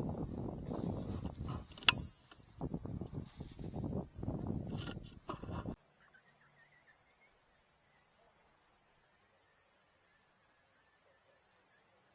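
Crickets chirping steadily with an even pulse. Over the first half, loud irregular rustling or handling noise, with one sharp click about two seconds in, then only the crickets remain.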